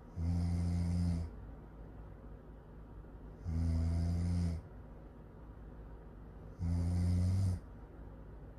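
Really loud snoring: three identical low snores, each about a second long, coming about every three seconds.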